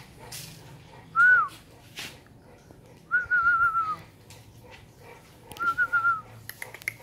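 A person whistling three notes at about the same high pitch: a short rise-and-fall about a second in, then two longer warbling notes. A few light clicks come near the end.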